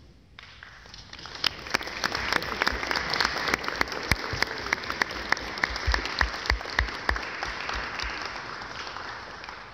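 Audience applause, building over the first two seconds and tapering off near the end, with many sharp single claps close to the microphone standing out. It greets a graduate being called up to receive her diploma.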